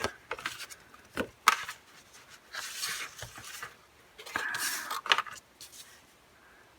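Handling of CD album packaging and inserts: a few rustling swishes and light clicks and taps, quieter near the end.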